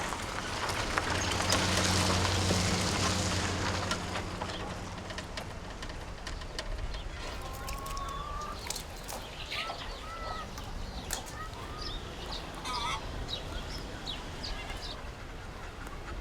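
Outdoor yard sounds with chickens clucking and small birds calling in short chirps through the middle and later part. In the first few seconds a low steady hum with a rush of noise swells and fades.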